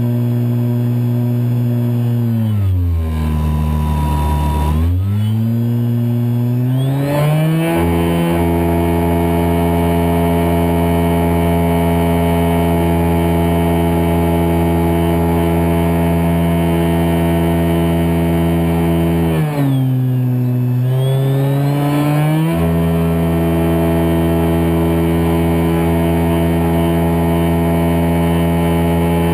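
Kyosho Spitfire 50 EP's Scorpion 4020 brushless electric motor and 11x10 APC propeller whining steadily, heard close up from inside the model's cockpit. About three seconds in the pitch slides down, stays low for a couple of seconds and climbs back; about twenty seconds in it falls and rises again the same way.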